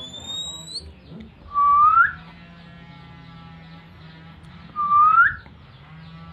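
Oriental magpie-robin (kacer) whistle calls: a loud rising whistle about two seconds in and again about three seconds later, with a thinner, higher rising whistle at the start. Faint chattering song runs underneath. The calls are those of a male in breeding condition.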